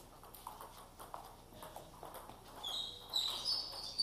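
Table tennis balls clicking in a rally, a quick run of light taps off the tables and bats. A few short high squeaks near the end.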